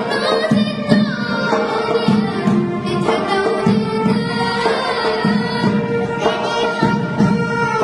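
A choir singing a song in Tunisian Arabic with instrumental accompaniment.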